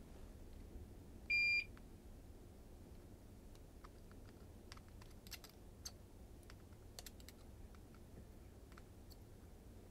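One short, high electronic beep a little over a second in. After it come scattered faint crackles and ticks from soldering flux-coated joints on the controller board.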